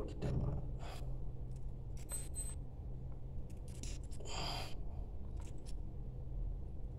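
Combination pliers clicking and scraping as insulated single-core wire is cut and stripped: a scattering of small clicks, with a longer scrape about four seconds in, over a steady low hum.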